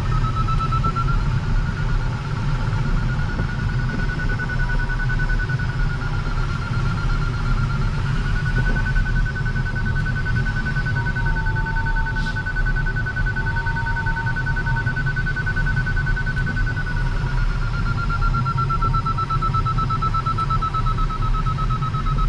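A glider's audio variometer beeping rapidly and steadily in strong lift while circling in a thermal; its pitch steps up about a third of the way in and eases back down later on. Underneath is the steady rush of air around an LS-4 sailplane's cockpit.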